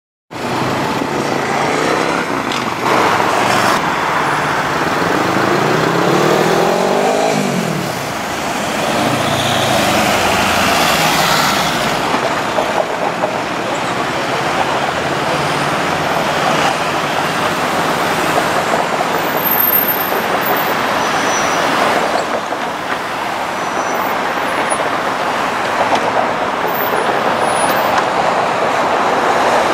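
Busy city road traffic: cars and buses passing close by. A few seconds in, a vehicle's engine rises steadily in pitch as it pulls away.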